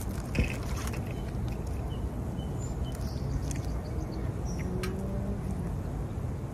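Chewing with small clicks and smacks from picking French fries out of a paper carton, over a steady low background rumble; one sharper knock about half a second in.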